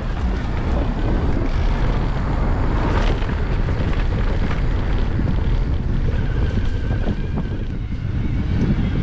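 Wind buffeting the microphone over the rumble of an electric mountain bike riding a rough trail, with many short rattles and knocks from the bike.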